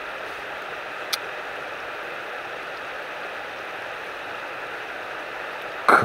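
Steady rush of flowing stream water, with a single short, sharp click about a second in.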